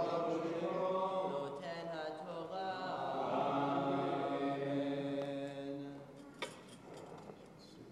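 A man's voice chanting Hebrew liturgy in long, drawn-out melodic phrases that hold and waver on single notes, breaking off about six seconds in. A short knock follows soon after.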